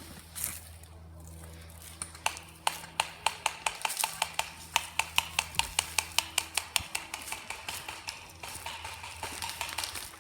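Airsoft gun firing a quick string of shots, about four or five sharp cracks a second, for about five seconds, with a few fainter shots after.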